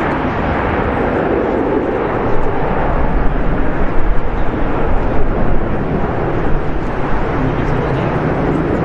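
Jet engines of a Ryanair Boeing 737-800 rumbling as the airliner rolls out on the runway after landing, the noise growing louder and rougher from about two seconds in.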